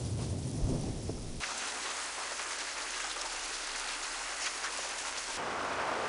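AI-generated rain-and-thunder sound effects, made by the FALL-E generator from the prompt "rain, raindrop, wind, thunder" and played back as separate variations one after another. The first variation has a low thunder rumble under the rain and cuts off about a second and a half in; the next is steady rain hiss alone, and near the end it switches abruptly to a different, fuller rain.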